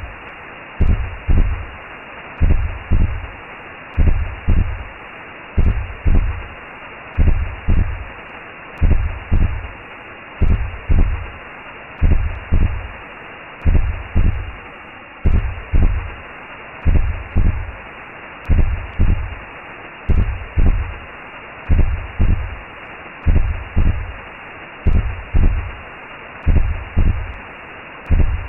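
Recreated womb sound: a steady whooshing hiss with low, regular heartbeat thumps, a little over one a second.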